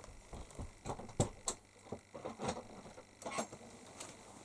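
Soft rustling and a few sharp clicks as a cat paws at a cloth-covered floor opening and pulls at a string of prayer beads.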